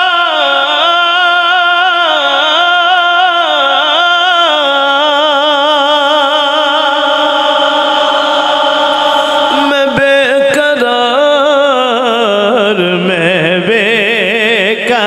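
A man singing a naat into a microphone, drawing out long ornamented notes with a wavering vibrato. A few sharp clicks come about ten seconds in.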